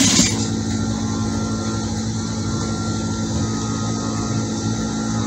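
Electric sewing machine running steadily as it stitches in an invisible zip, a continuous motor hum with a brief louder burst at the very start.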